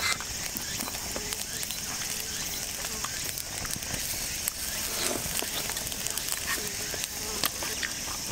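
Steady high-pitched hiss with scattered small clicks and crackles throughout.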